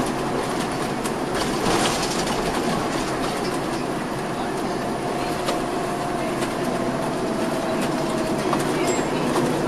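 Cabin noise inside a moving 2004 MCI D4500CL coach: a steady rumble of its Caterpillar C13 engine and the road, with scattered rattles and clicks. A faint whine holds through the middle and sags slightly in pitch.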